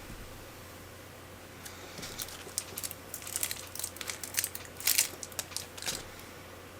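Close-up handling noise as doll eyes are worked into a 3D-printed doll head: a run of small crinkles and clicks starting about two seconds in, densest and loudest around four to five seconds, then stopping.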